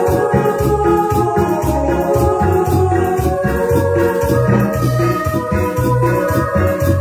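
A small live band playing: electronic keyboards hold organ-like chords over low bass notes, while a drum kit keeps a steady beat.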